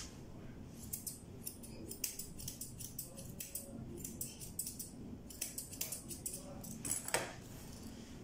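Grooming scissors snipping through a cat's long fur in quick, irregular cuts, about four snips a second, stopping near the end.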